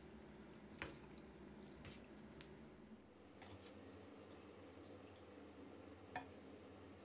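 Faint wet dripping and light clinks of a metal spoon stirring shredded chicken in broth in a stainless steel bowl and lifting it onto a plate, with a few soft taps, the clearest near the end.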